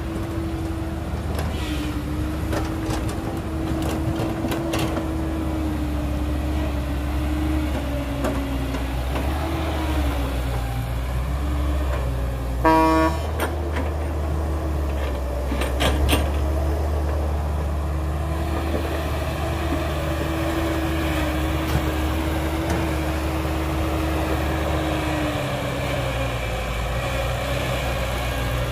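Heavy diesel engines of a dump truck and excavator running steadily, their pitch wavering slightly, with a few sharp knocks. About halfway through, a vehicle horn gives one short toot.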